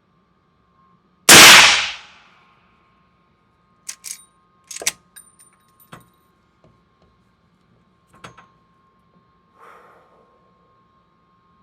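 A single shot from a suppressed Henry Model X lever-action rifle in .45-70, very loud and dying away within about a second. A few sharp metallic clicks and clacks follow over the next several seconds as the lever action is worked.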